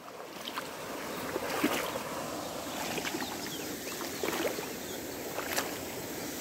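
Monsoon-swollen river floodwater rushing steadily, with a couple of faint clicks.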